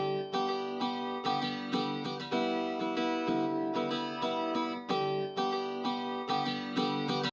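Background music on a guitar, notes plucked in a steady rhythm, cutting off abruptly at the end.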